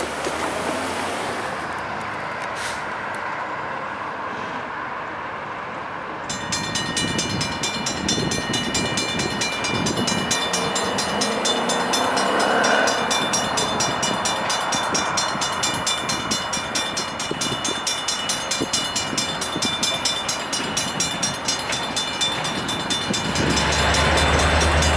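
Railroad grade-crossing warning bell starting up about six seconds in and then striking steadily, about twice a second, over a steady rumble. A low engine drone joins near the end.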